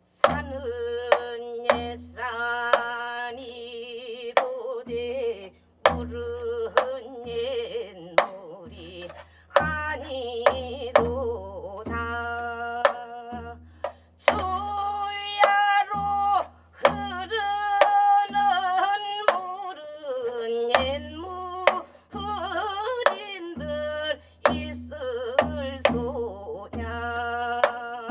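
A woman singing a Gyeonggi-chang folk song with wavering held notes, accompanying herself on a janggu (Korean hourglass drum): sharp stick strokes and low drum beats mark the rhythm under the voice.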